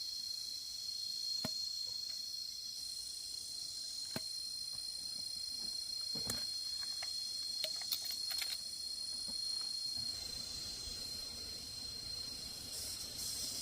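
Insects shrilling steadily on one high pitch, with a few scattered sharp knocks or taps.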